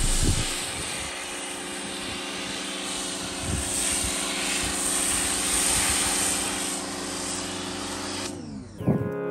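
Pressure washer running: a steady motor hum under the hiss of the water spray. Near the end the spray cuts off and the motor hum falls in pitch as it winds down.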